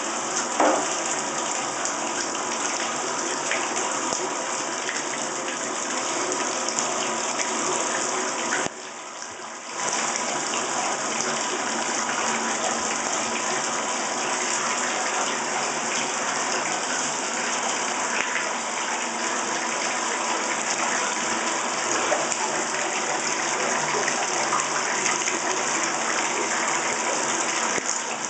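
Water running steadily into a bathtub, a continuous rushing that drops away abruptly for about a second roughly nine seconds in.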